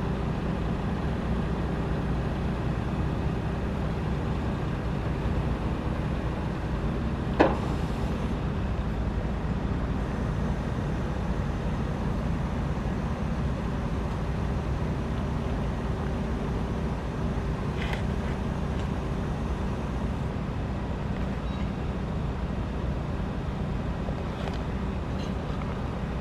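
Truck mixer's diesel engine running steadily while the hydraulic telescopic chute swings and lowers. A single sharp clank comes about seven seconds in, with two much fainter ticks later on.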